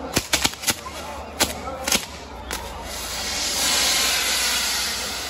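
Fireworks on a castillo tower igniting: a quick string of about seven sharp pops and cracks, then a steady hissing rush that swells from about three seconds in as a section bursts into flame and sprays sparks.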